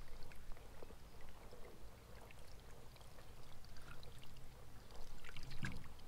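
Water pouring and trickling out of a fishing trap lifted from a pond as it drains, with a few small handling knocks.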